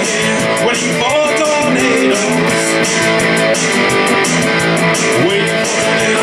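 Electric guitar being strummed, playing a song.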